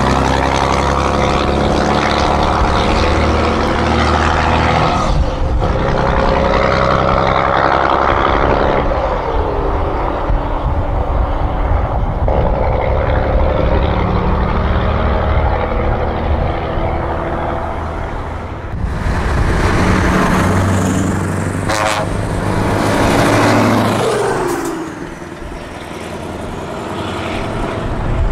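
Heavy truck diesel engines driving past one after another, loud and steady under power, a Scania tractor unit pulling away first. The engine note slides in pitch as trucks go by, and the sound changes abruptly several times as one passing truck gives way to the next.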